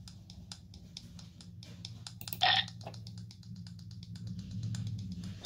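Desktop Goose app sound effects: a steady patter of soft footstep clicks, about five a second, as the cartoon goose walks, with one short honk about two and a half seconds in, over a faint low hum.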